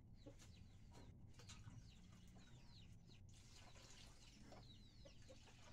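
Faint chirping of birds: many short calls, each sliding down in pitch, in quick succession throughout, over a low hum.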